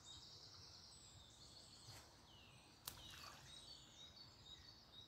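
Faint birdsong, quick chirps and short falling whistles, over near-quiet outdoor ambience. About three seconds in, one short sharp tick as a thrown wooden stick lands in the creek.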